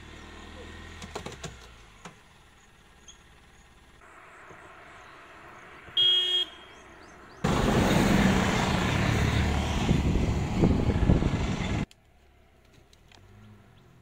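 A vehicle horn gives one short toot, then a vehicle's engine runs loudly close by for about four seconds and cuts off abruptly.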